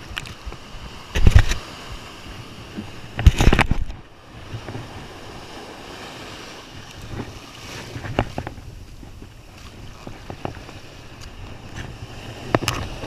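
Ocean surf washing up the beach in a steady rush, with two loud bursts of noise on the microphone about one and three seconds in, and a few fainter knocks later.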